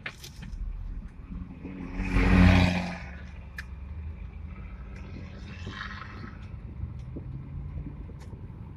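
Car engine rumbling at low speed, with one brief louder swell about two seconds in.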